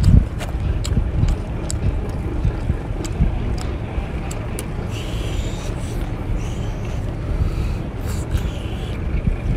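Wind buffeting the microphone with a loud, uneven low rumble throughout. Under it are scattered wet mouth clicks and a couple of short sucking hisses from eating a whole cooked octopus.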